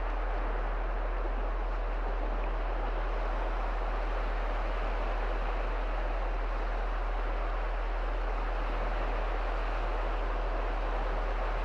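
Small sea waves breaking and washing up a sandy shore, a steady even rush of surf, with a constant low rumble underneath.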